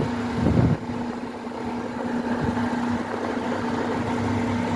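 A machine running with a steady, even hum, joined by a short burst of handling noise just under a second in.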